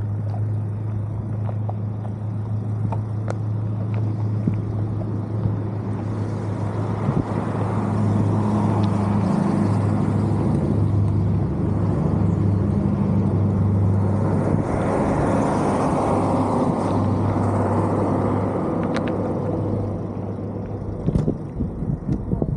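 Small RC car driving over street pavement, its motor and drivetrain giving a steady low hum under the rolling noise of its wheels. The noise grows louder for several seconds in the middle and then eases off, with a few sharp clicks.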